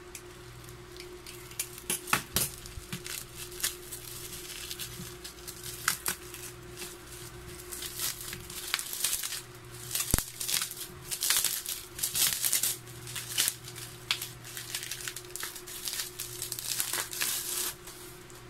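Plastic bubble wrap and cling film crinkling and tearing as a spray can is unwrapped by hand, in irregular crackles that grow busier from about eight seconds in, with one sharp click about ten seconds in. A steady low hum runs underneath.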